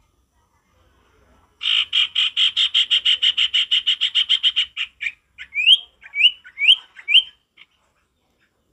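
Common iora (sirtu) singing: a rapid trill of about eight notes a second, lasting some three seconds, followed by a run of about five short, quickly rising whistles.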